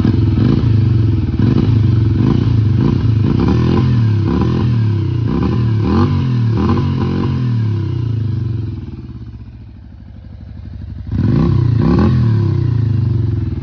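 Yamaha Virago 400 V-twin running on its freshly rebuilt Mikuni CV carburettors, the throttle blipped over and over so the revs rise and fall. The revs sag about nine seconds in, then the throttle is snapped open again about eleven seconds in.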